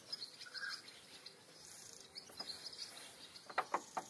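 Faint outdoor background of birds and insects chirping, with a quick run of sharp clicks near the end.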